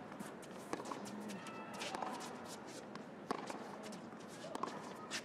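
Tennis rally on an indoor hard court: racket strikes on the ball about every second and a half, with tennis shoes squeaking on the court surface between shots.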